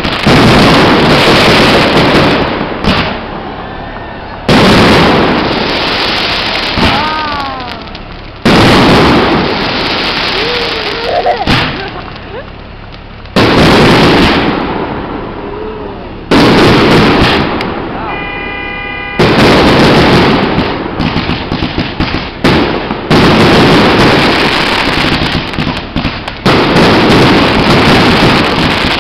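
Aerial fireworks shells bursting: a heavy boom every three to four seconds, each fading off in a rumble, with bursts coming faster and crackling in the last third.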